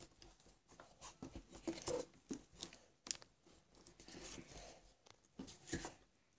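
Faint, scattered small clicks and rustles of fingers pressing soft putty down into its round metal tin.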